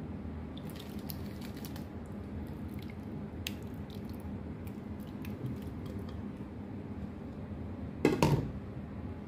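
Herb-and-olive-oil marinade poured and spooned onto raw chicken thighs in a plastic tub: soft wet squishes, drips and light clicks over a steady low hum, with a louder thump about eight seconds in.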